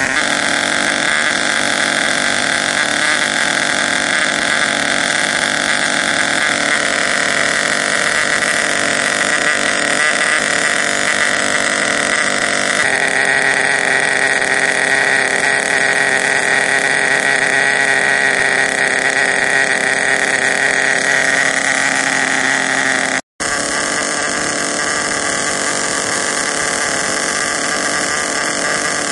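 Small two-stroke nitro glow engine of a Redcat Volcano SV RC truck running steadily during its first break-in run, a continuous high-pitched buzz. It cuts out for a split second about three quarters of the way through.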